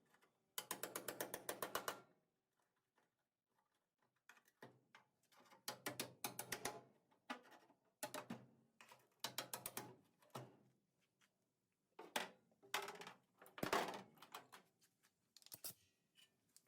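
Rapid mechanical clicking in repeated short bursts of a second or two, about ten clicks a second, with short pauses between bursts, from hand-tool work on the Bronco's body.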